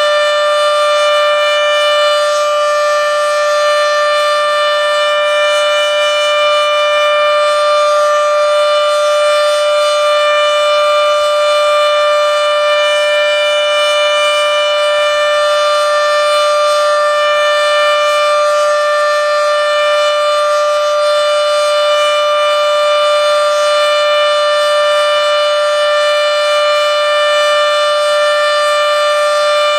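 Federal Signal Model 7B dual-tone outdoor warning siren sounding its steady alert signal: a loud, sustained chord held at one pitch, short of the siren's full pitch.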